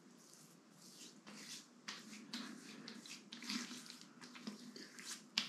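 Faint wet splashing and rubbing: water being worked over the face after a razor pass, in short irregular strokes, with a sharp tap near the end.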